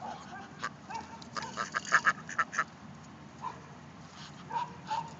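Muscovy ducks crowding round to be fed, giving a few short, soft calls, while one pecks corn from a hand-held plastic cup: a quick run of sharp clicks from its bill striking the cup, loudest about two seconds in.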